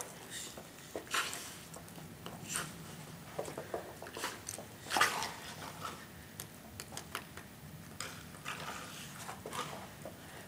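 Irregular soft scuffs, taps and light clicks of a Belgian Malinois and its handler moving over a carpeted floor during heelwork, with a few brief breathy rustles.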